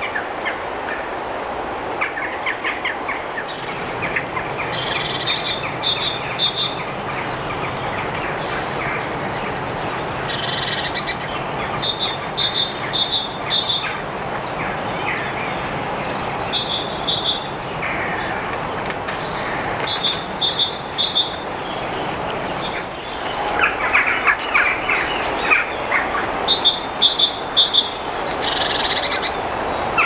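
Songbirds singing and chirping over a steady hiss, with one short phrase of a few high notes repeated every few seconds. The calling is busiest near the end.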